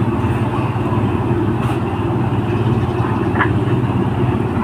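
Easyride 150N motorcycle engine idling steadily, with an even, rapid low pulse.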